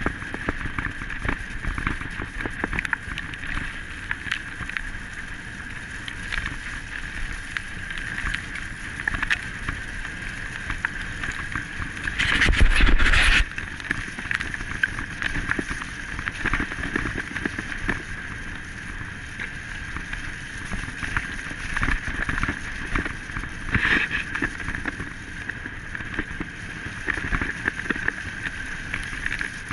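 Wheels rolling and rattling over a gravel forest track at speed, with a steady high whine throughout. Wind buffets the microphone, loudest in a rush about twelve seconds in.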